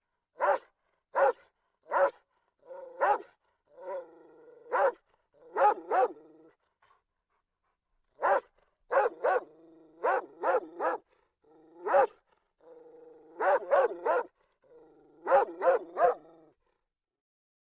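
About twenty short, sharp, bark-like yips, some single and some in quick pairs or triplets, with a low hum between some calls and a pause of about two seconds partway through. The calls are offered as the thylacine's (Tasmanian tiger's) bark.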